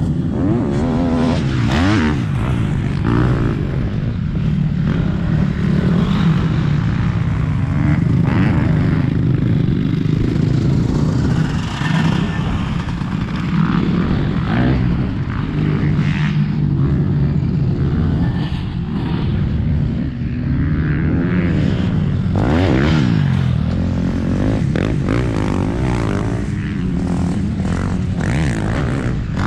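Motocross bikes' engines revving hard and easing off as they ride the track, several overlapping, their pitch rising and falling over and over.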